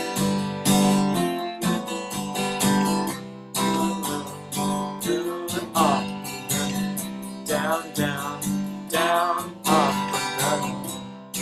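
Steel-string acoustic guitar strummed in a steady down-up pattern, cycling through a C–G–F–G chord progression.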